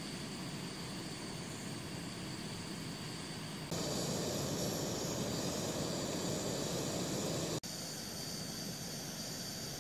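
Portable gas canister camping stove burning under a kettle of coffee water, a steady hiss. It gets louder and fuller about four seconds in, then drops back abruptly after about another four seconds.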